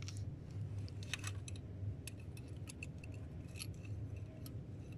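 Light, irregular metallic clicks and clinks of a diesel injector and its sealing washer being handled and fitted into the cylinder head of a Mitsubishi 4D56 engine, over a low steady hum.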